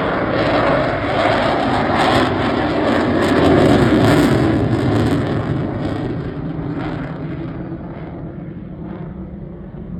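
Eurofighter Typhoon's twin Eurojet EJ200 jet engines running loud in reheat (afterburner), with a crackling edge. The noise builds to a peak about four seconds in, then fades steadily.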